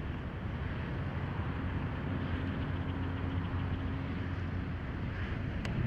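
Steady low rumble of distant engine noise, with a faint steady hum standing out for a few seconds in the middle and a single short click near the end.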